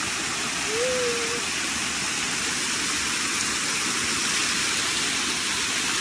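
Small waterfall pouring and splashing over rock ledges, heard close up as a steady, loud rush of water.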